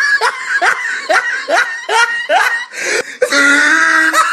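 A person laughing hard in quick, high-pitched bursts, about three a second, breaking into a longer drawn-out cry about three seconds in.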